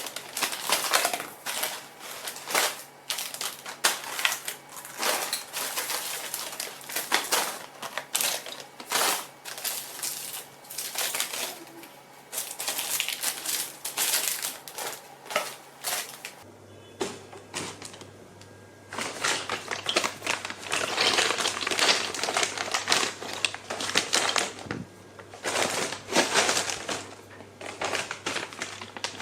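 Snacks and other household items being handled and put in place on a small trolley cart during tidying: a dense run of short knocks, clacks and rustles of packaging, thinning out for a few seconds a little past the middle.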